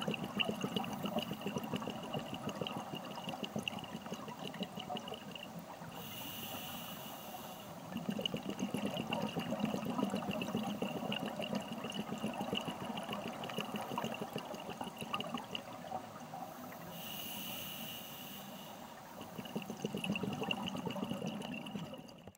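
Scuba regulator breathing heard underwater through a camera housing: a bubbling, crackly exhalation for most of the time, broken twice by a hissing inhalation, about six and seventeen seconds in.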